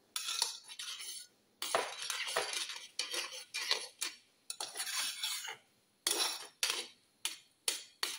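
Stainless-steel spoon stirring thick ragi soup in a metal pot, scraping against the pot in repeated strokes, about one or two a second.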